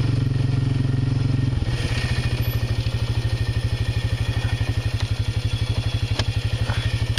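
Off-road vehicle's engine idling with a low, even putter of about eleven beats a second.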